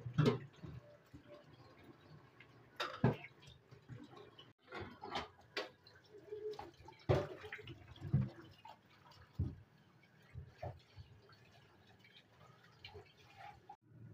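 Irregular knocks and taps: a knife chopping through a roll of soft dough and striking a wooden board, then dough pieces handled and set down on a plastic plate.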